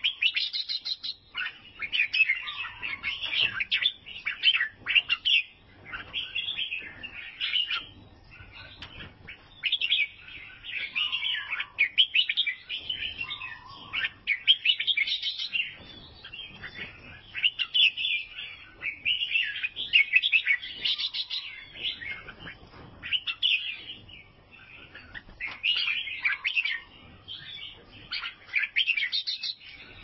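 Albino bulbul singing: short, chirpy warbled phrases of about a second each, repeated one after another with brief pauses.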